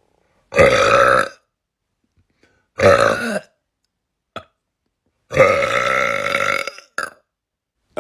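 A person belching loudly three times: short burps about half a second in and about three seconds in, then a longer drawn-out one of well over a second, starting about five seconds in.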